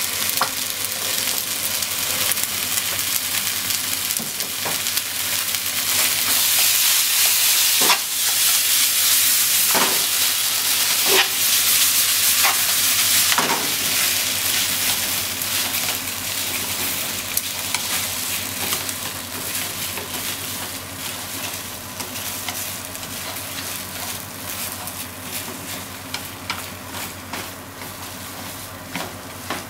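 Potatoes, shimeji mushrooms and minced meat with ketchup sizzling in a hot frying pan while being stir-fried with chopsticks, with sharp clicks of the chopsticks against the pan. The sizzle is loudest a few seconds in and slowly dies down over the second half.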